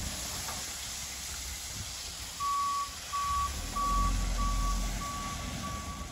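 Dump truck reversing: its backup alarm starts about two seconds in and beeps steadily, about one and a half beeps a second, over the low rumble of the truck's engine.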